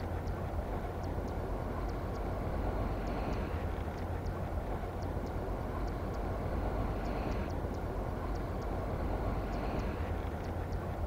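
Steady wind rumble on an action-camera microphone beside a canal, with faint light ticks a few times a second. A soft swirl of water near the end as a catfish strikes the topwater lure.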